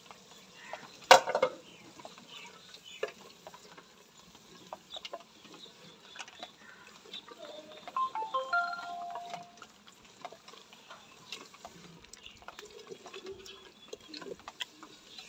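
Mutton liver frying in masala in a clay handi, stirred with a wooden spoon: scattered ticks and crackles of frying and stirring. A sharp knock about a second in is the loudest sound, and a brief chirping call comes near the middle.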